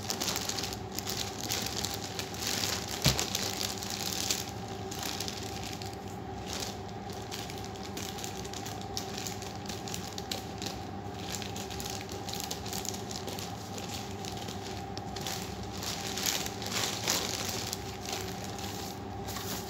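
Plastic courier mailer crinkling and rustling as it is handled, cut with scissors and torn open, with a single sharp click about three seconds in. A steady hum runs underneath.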